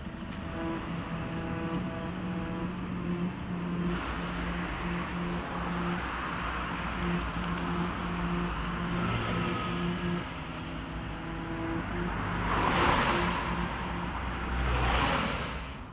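City street traffic, with cars passing; the two loudest go by about 13 and 15 seconds in. Under them is a low hum that pulses on and off.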